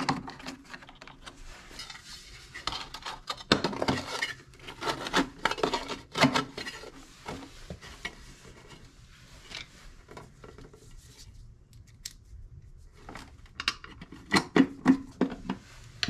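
Clicks and scrapes of an electric water heater's plastic thermostat guard being pressed into place and its sheet-metal access cover being fitted over the element opening. The handling is dense at first, goes quieter around the middle, then gives a further run of sharp clicks near the end.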